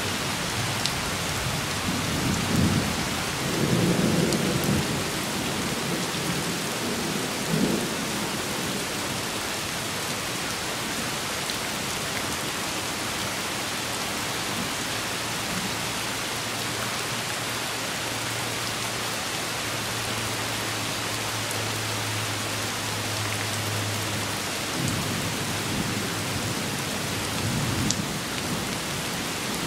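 Steady rain falling, with low rumbles of thunder about two to five seconds in, briefly near eight seconds, and again near the end.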